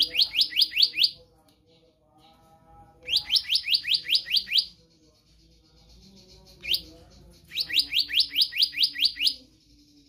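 Black-naped monarch singing: three runs of rapid, clear, rising whistled notes, about six a second, with a single note between the second and third runs.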